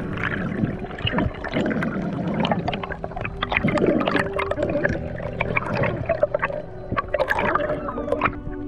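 Water gurgling and sloshing around an underwater camera, with a dense crackle of small clicks and bubbles as the diver swims up toward the surface.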